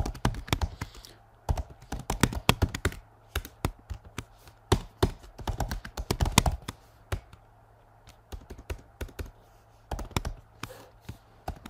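Typing on a computer keyboard: irregular runs of key presses, with a pause of about two seconds a little past the middle.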